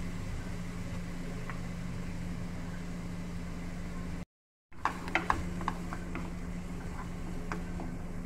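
A steady low mechanical hum runs throughout, cut by a brief dropout about four seconds in. After it, a wooden spatula scrapes and taps against a nonstick frying pan as chopped onion and capsicum are stirred.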